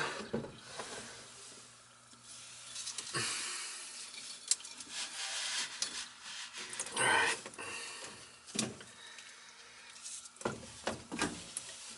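Rubbing and scraping of a hose being pulled out of a cut-open galvanized drain pipe and wiped with a rag, with scattered clicks and knocks. A louder scrape comes about seven seconds in.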